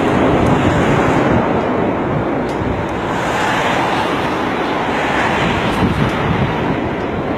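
Steady loud rushing noise of an airliner and strong wind, with wind buffeting the microphone.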